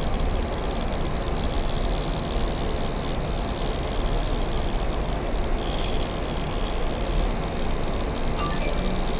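A steady low rumbling noise, even throughout, with a faint short rising chirp near the end.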